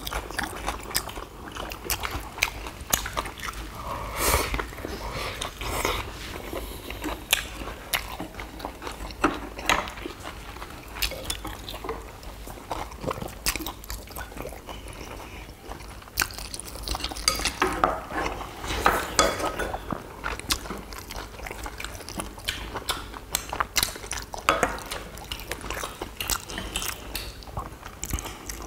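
Several people chewing and biting into fresh leaf wraps of lettuce and perilla with rice and duck bulgogi, the leaves crunching, amid scattered clicks of chopsticks against bowls and plates.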